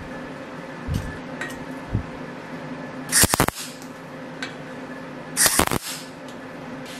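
MIG welder laying two short tack welds on a steel tube ring, each a crackling sizzle of about half a second, a little over two seconds apart. Two soft thumps about one and two seconds in, over a steady low hum.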